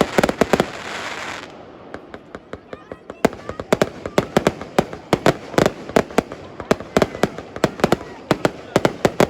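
Fireworks going off: a quick volley of sharp bangs with a hissing fizz for the first second or so. After a short lull comes a long run of sharp reports, several a second.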